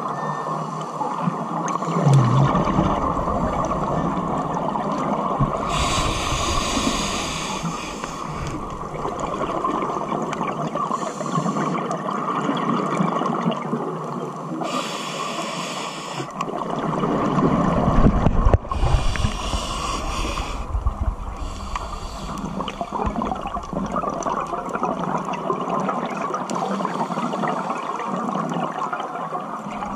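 Scuba diver breathing through a regulator underwater: several hissing inhalations about two seconds long alternate with low rumbling bursts of exhaled bubbles. The loudest bubble burst comes a little past halfway. A steady underwater hiss runs beneath.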